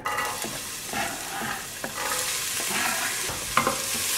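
Chopped onions sizzling as they fry in hot oil in a pot. The sizzle starts suddenly as they go in and stays steady, with a few clicks of stirring.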